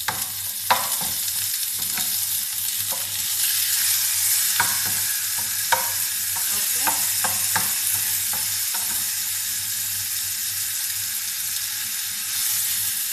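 Chicken and diced onion sizzling in oil in a frying pan, with a spatula scraping and knocking against the pan as the pieces are stirred. The knocks stop about nine seconds in and the steady sizzle carries on.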